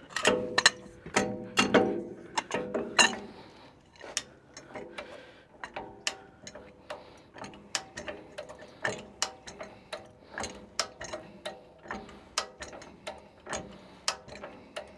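High-lift jack being pumped, its climbing pins clicking along the steel bar in an even rhythm of about two clicks a second as it presses a tyre's sidewall down. The first few seconds bring louder metal clanks that ring briefly.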